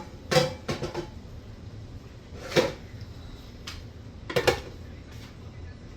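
Dishes and kitchen utensils being handled: a few quick clatters in the first second, then single clanks about two and a half and four and a half seconds in, with a lighter tap between.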